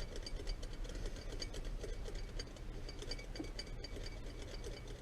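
Hand filing on metal with a round file: quick back-and-forth strokes giving small rasps and light ticks several times a second, over a steady low hum.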